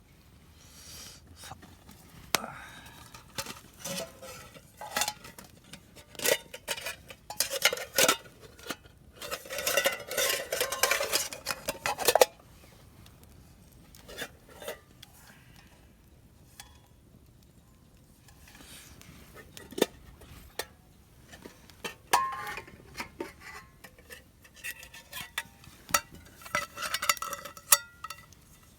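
Dishes and metal utensils clinking and clattering in irregular bursts, busiest about a third of the way in and again near the end.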